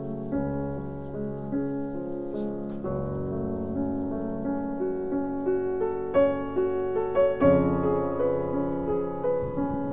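Background piano music: a slow melody of sustained notes over soft chords.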